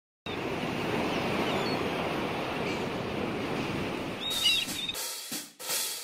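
Steady hiss of ocean surf, with a short high wavering cry about four seconds in; the surf breaks off in a couple of short washes near the end.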